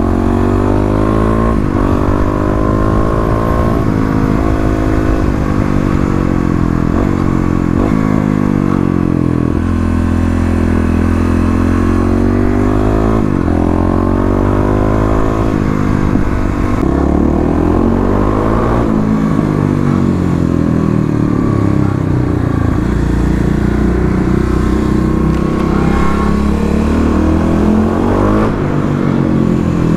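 Kawasaki KLX250 dirt bike with a 351cc big-bore kit, FMF Q4 slip-on and Megabomb header, its single-cylinder four-stroke engine running hard. The pitch climbs as it revs, then drops sharply, again and again.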